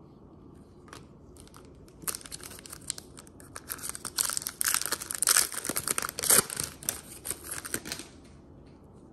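A Panini Recon trading-card pack's foil wrapper being torn open and crinkled by hand. The tearing and crinkling starts about two seconds in and stops near the end.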